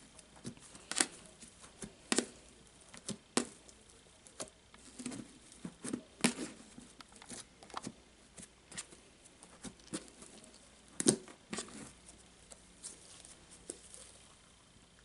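Thick, taffy-like slime being kneaded, pressed and pulled by hand on a plastic bucket lid: irregular sticky pops and clicks, the loudest about eleven seconds in.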